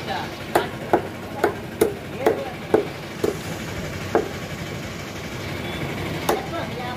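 A heavy cleaver chopping chicken meat and bone on a wooden tree-trunk block, sharp strikes about two a second for the first four seconds, then a pause and one more strike near the end.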